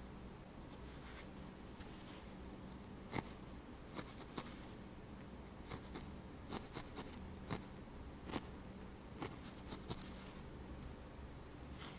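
Felting needle stabbing repeatedly into a wool-felt cat nose: about fifteen faint, short, irregular pokes, some sharper than others, over a steady low hum.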